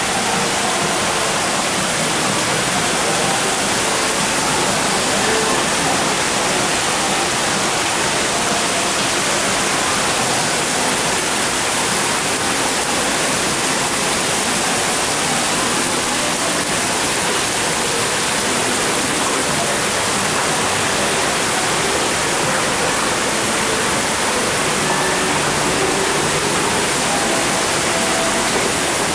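Decorative fountain: many small water jets splashing into a stone basin, a steady rushing hiss that stays even throughout.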